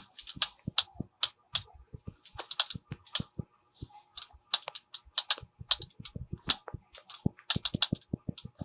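Fingers tapping and clicking on hard objects: quick, irregular sharp taps, several a second, with a few short scratchy rubs in between.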